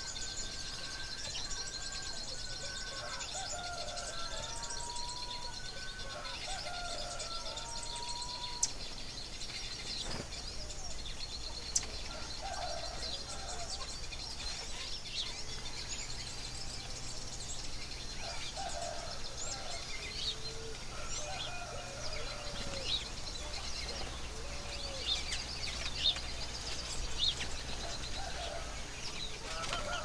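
Several wild songbirds calling: clear whistled phrases that bend up and down in pitch, over a steady stream of high, thin chirps.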